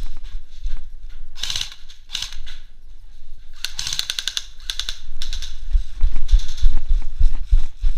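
Several short bursts of airsoft rifle fire, each a rapid run of sharp clicking shots at roughly a dozen a second, the longest burst near the middle. Heavy low thuds of running footsteps and gear knocks on the concrete run underneath, growing louder near the end.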